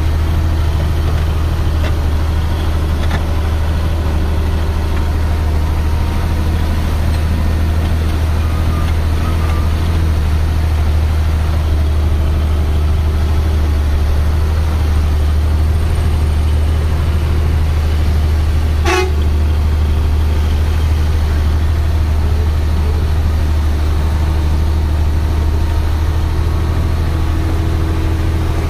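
Tata 3118 truck's diesel engine running with a steady low drone, heard from inside the cab while driving. A single sharp click comes about two-thirds of the way through.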